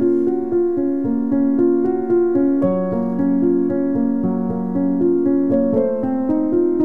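Background music played on a piano-like keyboard: a slow melody over held notes, changing about every half second.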